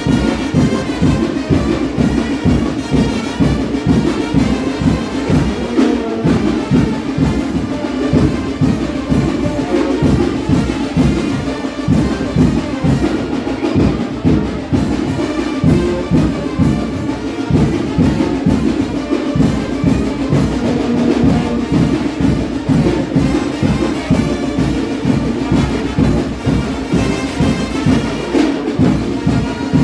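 Live brass band playing chinelo dance music: brass carrying the tune over a steady, driving drum beat.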